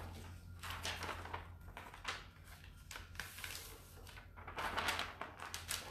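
Plastic decor transfer sheet crinkling and scratching as it is rubbed down by hand onto deeply grooved barnwood, in irregular strokes.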